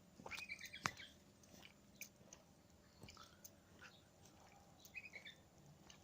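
Faint songbird chirps: a few short calls about half a second in and again near five seconds, with scattered soft clicks and one sharper click just under a second in.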